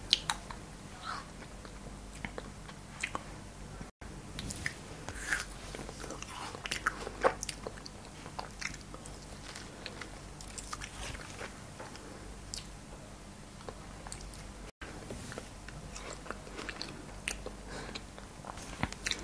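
Close-miked biting and chewing of frozen cherries: scattered short, crisp crunches and clicks at an irregular pace, over a steady low hum.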